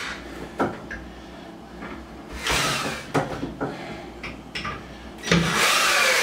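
Power drill running in two short bursts, about two seconds in and again near the end, its motor pitch sliding as it drives screws into the top rail of a wooden bunk bed headboard. Light clicks and knocks of handling fall between the bursts.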